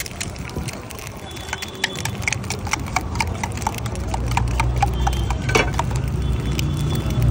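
A run of regular sharp knocks, about four a second, that clip-clop like hooves on a hard road, over a low rumble that grows louder about four seconds in.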